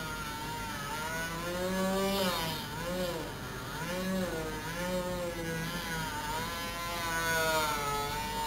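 Bare-armature brushed DC toy motor spinning on two AA batteries, with bare wire ends held on its commutator in place of brushes. It gives a whine whose pitch keeps wavering up and down as the wire contacts shift and the speed changes.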